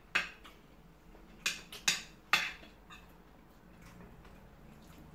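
Eating sounds at a meal of rice and chicken: four sharp clicks and smacks in the first two and a half seconds, then only low background.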